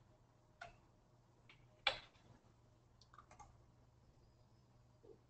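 Near silence broken by about half a dozen sharp clicks from a computer being operated, the loudest about two seconds in and a quick cluster about three seconds in.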